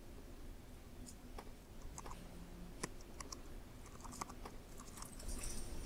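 Typing on a MacBook laptop keyboard: faint, irregular key clicks, a few at a time.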